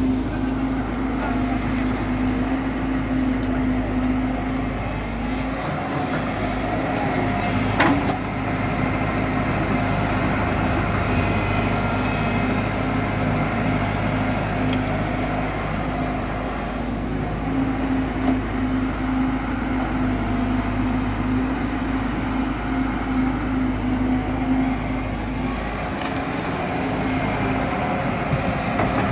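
Diesel engine of a JCB tracked excavator running steadily as it digs, with one sharp clank about eight seconds in.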